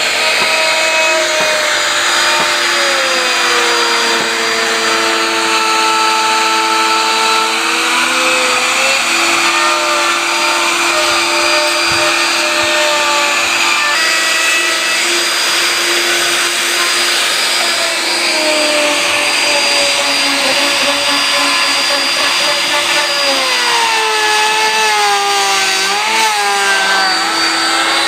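Electric woodworking power tool running continuously, its motor whine sinking in pitch and recovering twice over a steady hiss.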